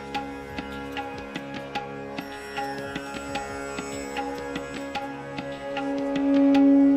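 Background music: a sustained drone with plucked notes and light drum strokes on a steady beat, swelling louder with a held low tone about six seconds in.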